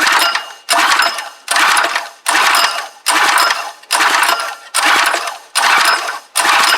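Recoil pull-starter of a Clarke petrol pressure washer's small engine pulled over and over, about one pull every 0.8 s, each pull a short loud mechanical burst. The engine turns over without firing, which the owner puts down to worn piston rings and no compression.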